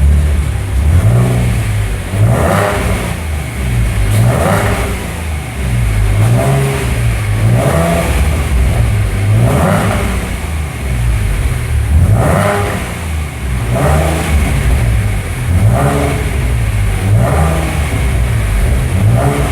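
Stock 2015 Ford Mustang's 3.7-litre V6 engine through its factory exhaust, revved in repeated blips, rising and falling in pitch about every two seconds.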